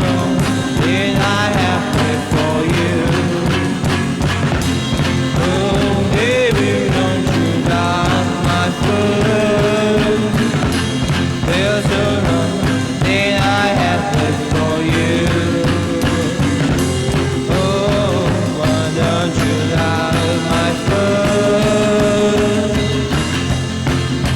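Background rock music with a fuzzy, psychedelic sound, playing steadily.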